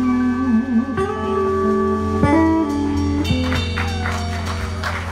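Live soul band playing: electric guitar, electric bass and keyboard hold sustained chords with a bending guitar line on top, then thin out in the song's closing bars.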